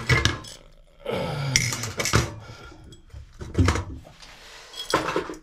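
Metal parts of a shower valve trim and hand tools clinking and clattering in several short knocks and rattles, with a longer rattling stretch in the first couple of seconds.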